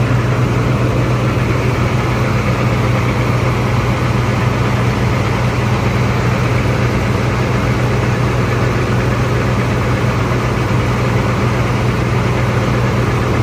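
Bus diesel engine idling steadily, a deep, even hum that holds unchanged throughout.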